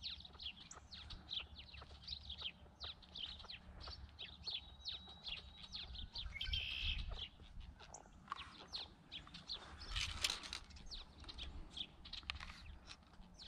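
A flock of house sparrows chirping steadily, many short chirps a second. About ten seconds in there is a brief, louder scuffing noise.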